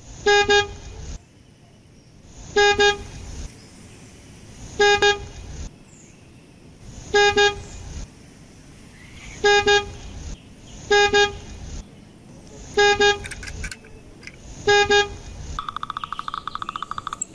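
Toy car horn sound effect: a short double 'beep-beep' toot repeated eight times, about every two seconds, over a low rumble. Near the end comes a fast buzzing rattle.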